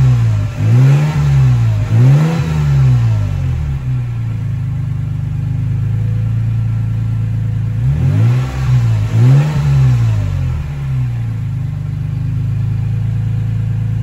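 Toyota Tacoma TRD Pro's 3.5-litre V6 heard through its side-exit exhaust: two quick revs from idle, then a steady idle for several seconds. About eight seconds in come two more quick revs, then it settles back to idle.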